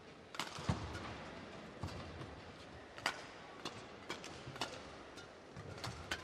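Badminton rally: sharp cracks of rackets striking the shuttlecock, about one every second or so, with low thuds of players' shoes landing on the court.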